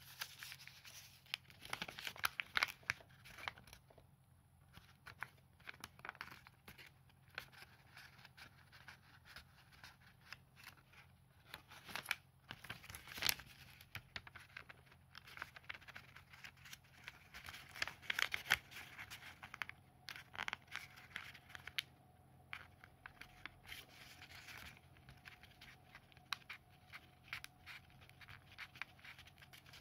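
Origami paper rustling and crinkling as fingers fold it and press a crease in. Irregular crackles and a few sharper snaps of the paper.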